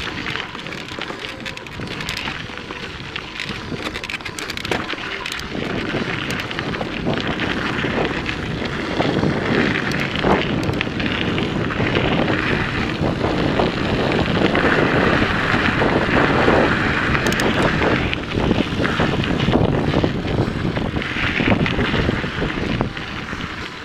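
Wind buffeting the microphone over the rumble of mountain bike tyres rolling on a rocky dirt trail, with scattered clicks and rattles. It grows louder about nine seconds in and drops again near the end.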